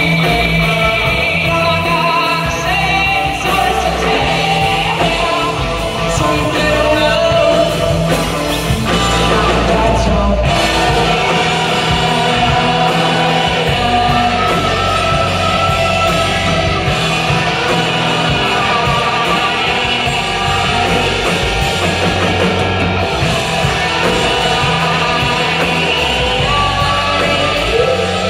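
Live rock band playing: two electric guitars, bass guitar and drum kit, with singing.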